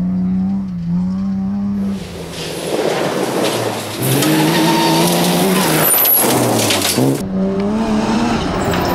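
BMW 325 rally car's straight-six engine running hard at high revs on a gravel stage, its pitch climbing and dropping with gear changes and throttle lifts. From about two seconds in, a hiss of tyres sliding on loose gravel and stones joins it, and the sound shifts abruptly a few times.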